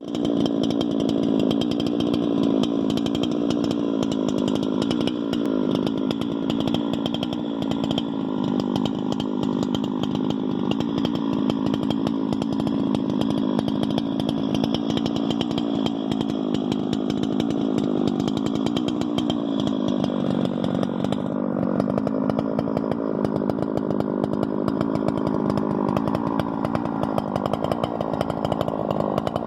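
Chainsaw engine running steadily under load, driving a long-bar portable chainsaw mill; its pitch wavers slightly. About two-thirds of the way through, the high hiss drops away while the engine keeps running.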